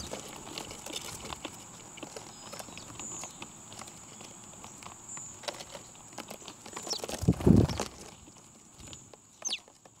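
Small birds feeding: scattered light taps like pecking and a couple of short, high, falling chirps, with a brief louder low rustling flurry about seven and a half seconds in. A faint steady high whine sits underneath.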